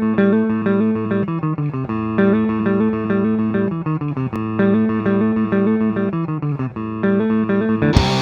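Clean bass and guitar playing a repeating riff of pitched notes. About eight seconds in, the full band comes in loud, with drums and distorted guitar.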